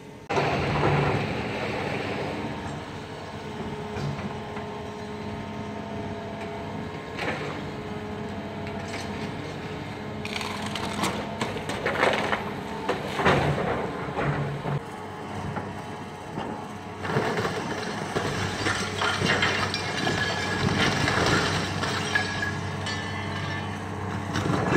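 Terex tracked excavator's diesel engine running steadily under load, with repeated cracking and crashing of wood and building debris as the bucket tears into the school building's roof and walls, loudest in the middle and again in the last third.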